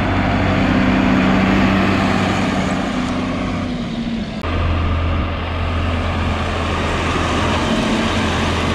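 John Deere 4440 and 4050 tractors' six-cylinder diesel engines running steadily as the tractors drive along a gravel lane. The engine hum changes abruptly about four seconds in, then runs on at a steady, slightly different pitch.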